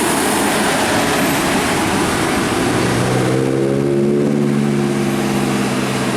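Large tour bus passing close by: a loud rush of road and engine noise, with a steady low engine drone coming in about three seconds in.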